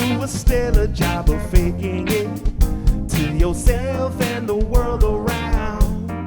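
Live soul band playing: a steady drum beat and bass under guitar, with a bending melodic lead line on top.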